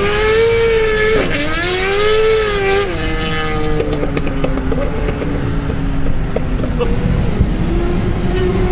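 Suzuki GSX-R1000 inline-four with a full Akrapovic exhaust accelerating hard, its high engine note climbing and dropping at a gear change about a second in and again about three seconds in. It then runs steadier and slowly falls before rising again near the end. Heard from inside a following car.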